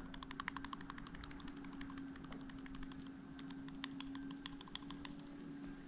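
A worn Mazda Miata timing belt tensioner pulley rattled by hand gives light, rapid clicking from the play in its bearing. This bearing wear is the cause of a clunking rattle from under the timing covers. The clicks come thick and fast for the first couple of seconds, then thin out.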